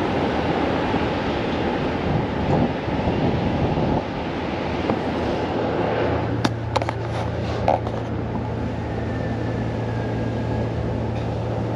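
Outside air and distant city noise rushing in through the open window of a Ferris wheel cabin. About halfway through the rush thins out and a steady low hum comes up, with a few sharp clicks soon after.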